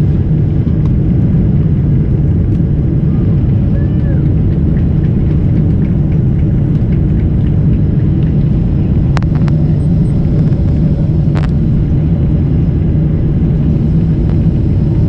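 Cabin sound of a Boeing 747-400 on its takeoff roll: a loud, steady rumble of the engines at takeoff power and the wheels on the runway. Two sharp knocks come about nine and eleven seconds in.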